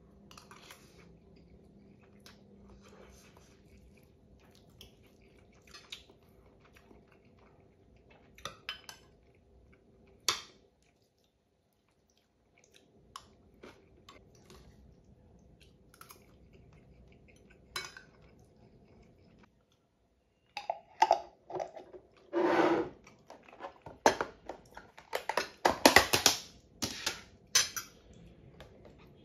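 Metal fork and spoon clinking and scraping against a ceramic plate while eating, in scattered single clinks at first. In the last third the clatter turns louder and much busier.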